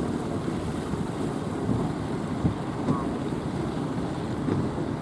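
Rough surf churning and wind buffeting the microphone as a motorised outrigger fishing boat drives through the breaking waves. The sound is a dense, uneven rumble.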